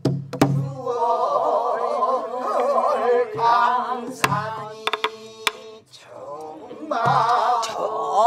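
Pansori singing, several voices with a wide, wavering vibrato, over a buk barrel drum. The drum is struck with a stick and the palm, giving a few sharp cracks and low thumps between the sung lines.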